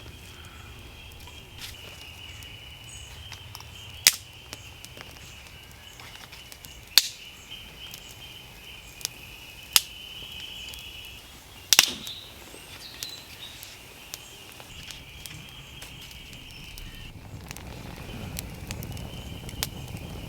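Firewood being chopped and split: a handful of sharp, loud strikes spaced a few seconds apart, one of them a quick double blow, with a steady high-pitched sound behind.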